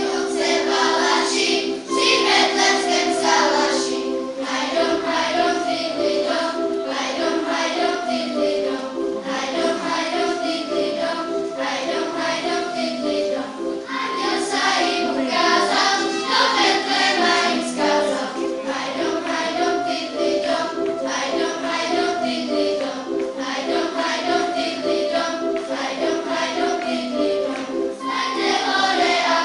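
A group of children sings a Christmas song together over an instrumental accompaniment that plays a steady, repeated rhythm.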